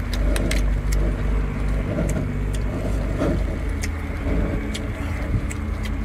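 An engine running steadily with a low drone. Scattered sharp clicks sound over it.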